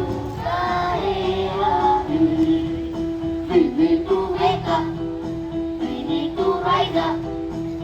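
Children singing a song over musical accompaniment with a steady beat.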